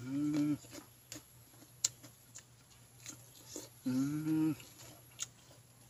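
A man eating by hand and chewing, with scattered wet clicks of chewing and lip-smacking. Two short closed-mouth hums of enjoyment, one at the start and one about four seconds in.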